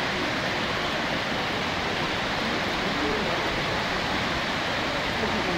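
Kurobe Dam's water discharge: jets of water falling from the dam and crashing into the pool at its foot, making a steady, even rushing noise.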